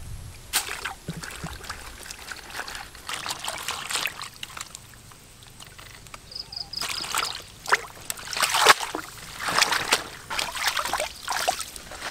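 River water splashing and sloshing in irregular bursts, busier and louder in the second half.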